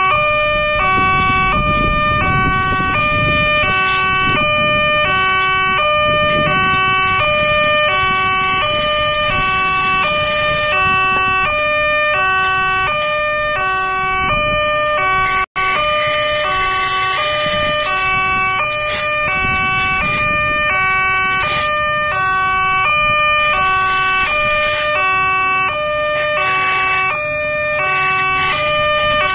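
Railway level-crossing warning alarm sounding from the loudspeaker on the crossbuck post: two alternating tones repeating steadily, about one cycle a second, warning of an approaching train while the barriers are down. It cuts out for an instant about halfway through.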